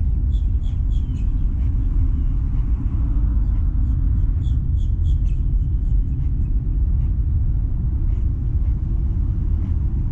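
Steady low rumble that fluctuates without a break, with faint, light high ticks in quick clusters in the first second or so and again about four to five seconds in.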